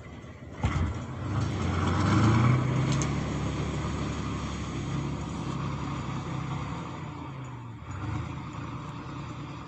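Kirovets K-701 tractor's diesel engine working under load. It swells to its loudest about two seconds in, then runs steadily and eases a little near the end, with a sharp knock just under a second in.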